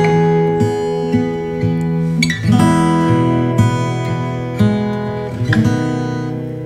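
Background music: an acoustic guitar plucking and strumming a tune, its notes changing every half second or so.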